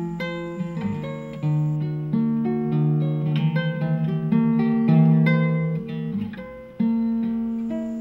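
Acoustic guitar music, with plucked notes and chords following one another steadily.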